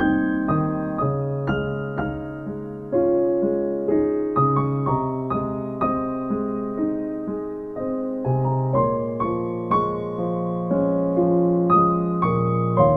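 Slow instrumental piano music: single notes and chords struck a few times a second and left to ring. There is no singing.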